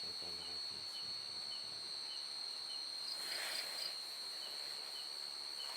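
Night insects, crickets above all: a steady high-pitched trill, with a second insect chirping about twice a second beneath it. A brief rustle about three and a half seconds in.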